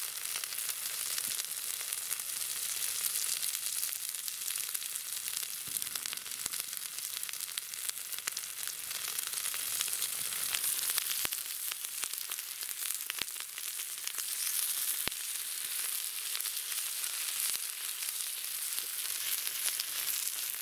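Chunks of fatty meat sizzling and frying in rendered fat on a hot steel harrow disc used as a pan, a steady high hiss with a few sharp pops and clicks.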